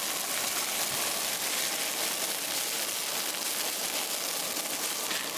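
Shredded hash browns frying in hot oil in a cast-iron skillet, a steady dense sizzle and crackle.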